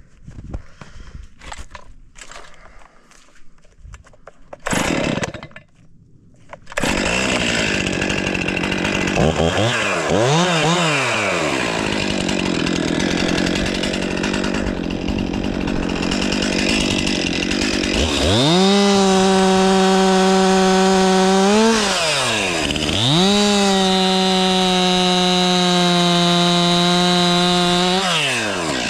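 Stihl MS 500i two-stroke chainsaw starting about seven seconds in after some light knocking, revved up and down, then held at full throttle for long steady spells. Those spells are typical of cutting into wood. The throttle is let off briefly in the middle of them and again at the end.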